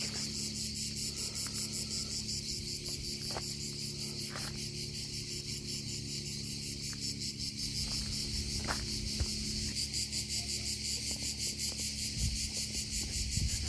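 Crickets chirping steadily in a fast, even, high-pitched pulse.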